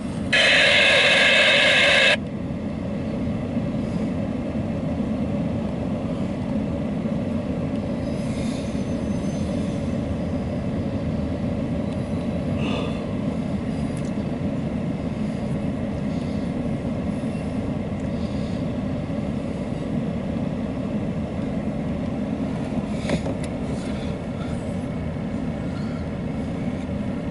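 Empty autorack freight cars rolling past, with a steady low rumble of wheels on the rails and a few faint clicks. A loud hiss covers the first two seconds and cuts off suddenly.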